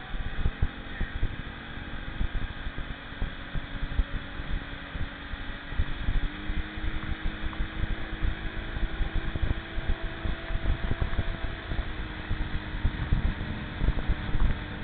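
Motorboat engine running steadily while towing, its note stepping up slightly about six seconds in, with heavy wind buffeting on the microphone.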